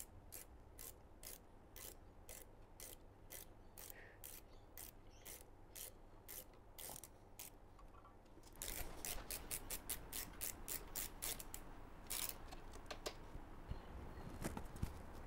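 A hand ratchet with a hex bit clicking steadily, about three clicks a second, as it winds the brake pad retaining bolts into a go-kart's brake caliper. Past the halfway point the clicks become louder and quicker.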